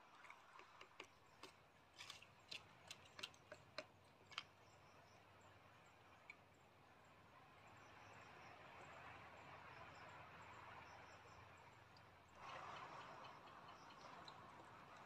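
Near silence: about a dozen faint, sharp clicks over the first four seconds or so, then a faint steady outdoor night-time hiss that steps up a little near the end.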